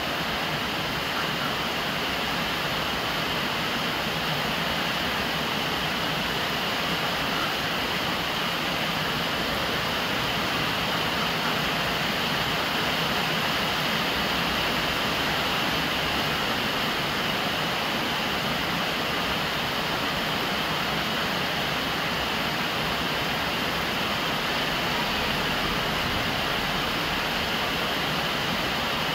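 Steady rain, with rainwater pouring from a PVC downspout and splashing onto the lid of a large water jar: an even, unbroken rush of falling and splashing water.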